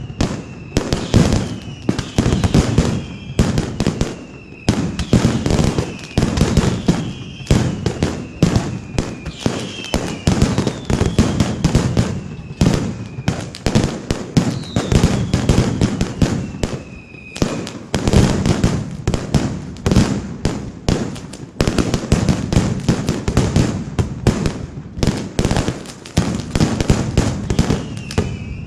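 Mascletà firecrackers going off in a rapid, unbroken run of bangs from strings of petards hung across the square. Several falling whistles from whistling fireworks run through the bangs for most of the first two-thirds and again near the end.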